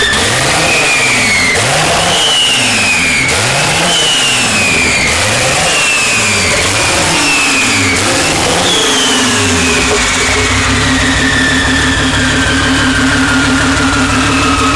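Turbocharged six-cylinder rear engine of a twin-engined Opel Calibra drag car running on its first start: blipped in short revs about once a second, with a high whine rising and falling on each. About ten seconds in it settles to a steady idle while the whine slowly falls away.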